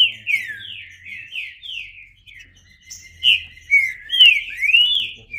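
Green-winged saltator (trinca-ferro) singing: a quick run of clear, downward-slurred notes, a short pause about two seconds in, then a second phrase that ends with rising notes.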